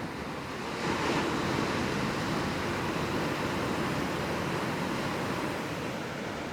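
Ocean surf: a wave breaks about a second in, and its wash of foaming water runs on, easing slightly near the end.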